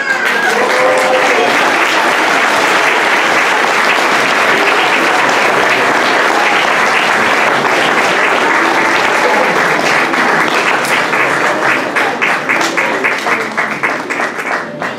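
Audience applauding steadily. The applause thins in the last few seconds into separate, distinct hand claps.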